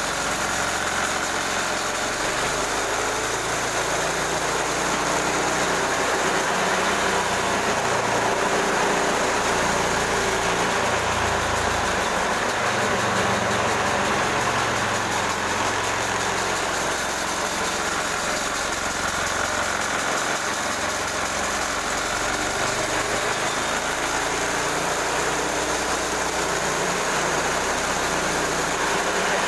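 Engine of a portable band sawmill running steadily.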